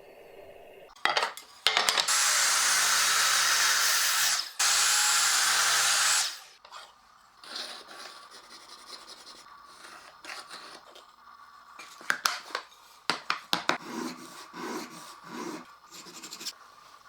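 A power tool runs in two loud stretches, about two and a half and one and a half seconds long with a short break between, working a wooden knife handle. After it stop comes quieter irregular rubbing and scraping on wood, with a cluster of sharp knocks and taps near the end.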